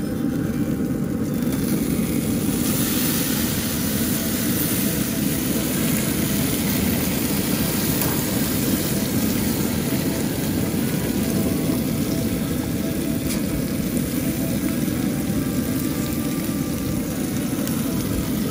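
Burger patties sizzling on a pellet grill's grate as they are flipped with a spatula; the sizzle's hiss grows louder about two and a half seconds in. Underneath runs a steady low rumble.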